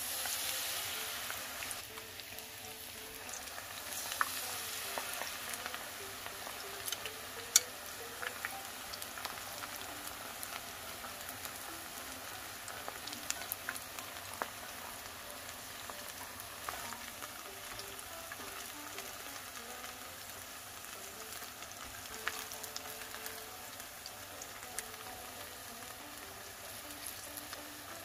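Battered dureup (Aralia elata shoots) deep-frying in hot oil. There is a louder sizzle as a battered shoot goes into the oil at the start, settling into a steady crackling fry with scattered sharp pops.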